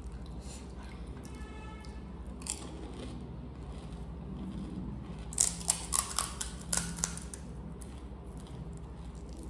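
Close-up eating sounds: a crisp puri shell being bitten and chewed, with a quick run of sharp crunches about five to seven seconds in.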